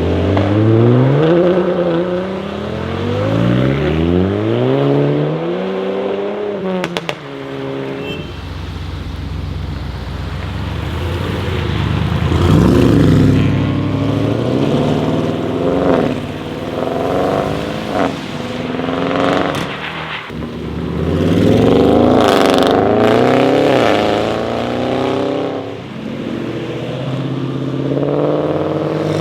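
Audi RS6 C8's twin-turbo 4.0-litre V8, made loud by catless downpipes and a particulate-filter delete, revving hard with its note rising and falling several times. Sharp pops and crackles sound on the overrun, about seven seconds in and again between later revs.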